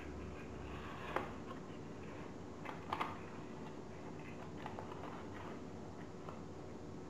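Folded paper origami modules rustling and crinkling as hands press and slot them together, with a few sharper paper crackles about a second in and twice around three seconds in, over a faint steady hum.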